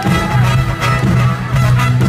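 A band playing live: a steady beat of about two drum hits a second over a prominent bass line and sustained melodic tones.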